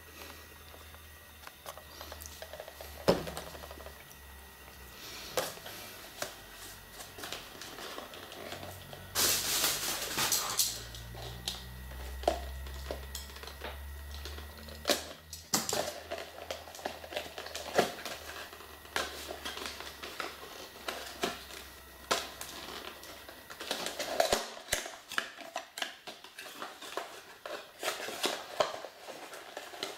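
Hands opening a boxed toy's packaging: scattered clicks, taps and rustling of cardboard and plastic, with a longer, louder rustle about nine seconds in.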